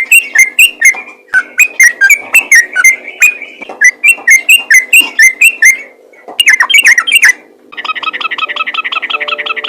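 Yellow-vented bulbul singing: runs of loud, bright whistled notes at about three a second, broken by short pauses, then from near the end a fast, continuous rattling trill. A faint steady hum lies underneath.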